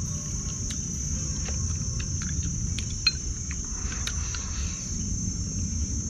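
Steady high-pitched chorus of insects shrilling without a break, with a few light clicks of chopsticks against rice bowls.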